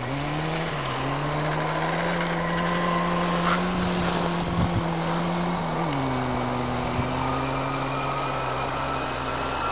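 Rally car engine running hard at high revs while the car slides along an ice track. The note holds steady and then drops to a lower pitch about six seconds in.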